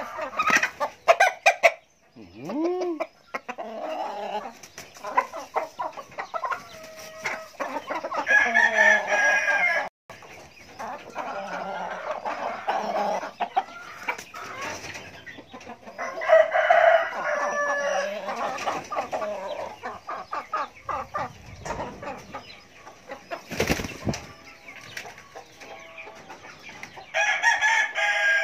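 Domestic chickens: a rooster crowing three times, about nine seconds apart, with hens clucking and calling in between. There is one sharp knock about three-quarters of the way through.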